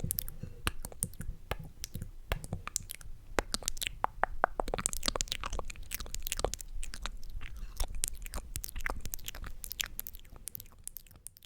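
Close-miked ASMR mouth sounds: a dense run of wet, sticky clicks and smacks of lips and tongue, many per second, that fades out near the end.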